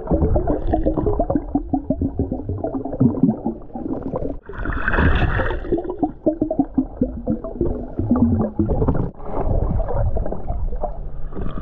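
Muffled underwater sound of a submerged camera moving through a seagrass bed: water gurgling and bubbling with many small clicks and crackles. A brighter rush of bubbling comes about halfway through.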